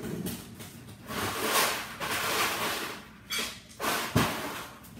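Off-camera noise of ice being fetched: a rush of noise lasting about two seconds, then a couple of short thumps.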